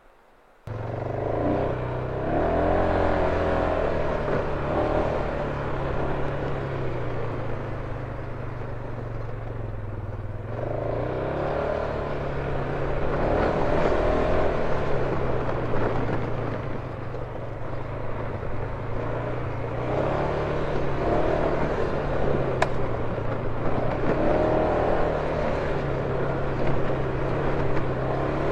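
A vehicle engine running, its pitch rising and falling repeatedly as the revs change. It starts abruptly about half a second in.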